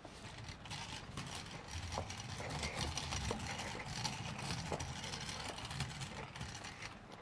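Kick scooter's small wheels rolling over a hard floor: a low rumble with fast, irregular clicking and rattling, easing off near the end.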